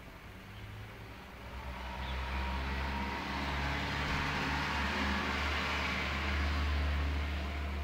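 Low engine rumble with a steady hum, swelling over a few seconds and easing off near the end.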